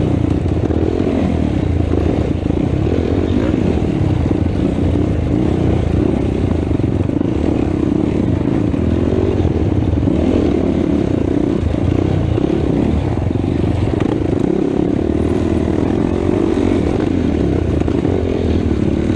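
Race ATV engine running hard under load, heard through a camera mounted on the quad itself. The engine sound stays steady, with no big rises or falls in revs.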